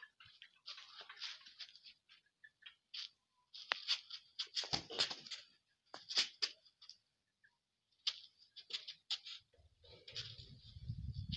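Irregular light scuffs and pats on bare dirt from quick footwork in flip-flops and a rooster darting about, in scattered clusters. A low rumble on the microphone comes in near the end.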